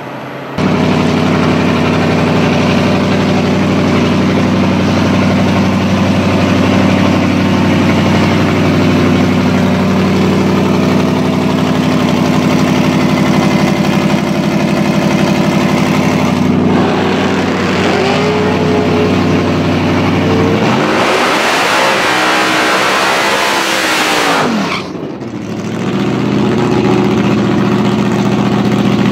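Supercharged 5.0-litre Coyote V8 of a Ford Super Cobra Jet drag-racing Mustang, running with a steady, lumpy note, then blipped a few times. About 21 seconds in it is revved hard for a burnout, with the loud hiss of spinning rear slicks for about four seconds, then it drops back to a steady run.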